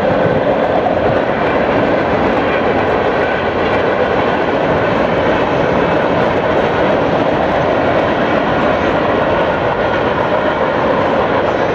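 Freight train of autorack cars rolling past, a loud steady wheel-on-rail rumble with no distinct beats.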